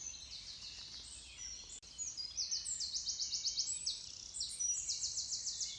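Dawn chorus: several songbirds singing at once, high-pitched, with fast trills of rapidly repeated notes about two and a half seconds in and again near the end.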